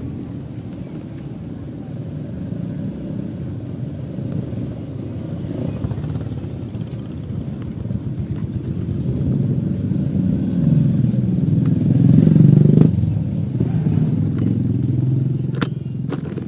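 Ride noise from an electric tricycle moving along a street with traffic: a steady low rumble that swells to its loudest about twelve seconds in, then a few sharp rattles near the end.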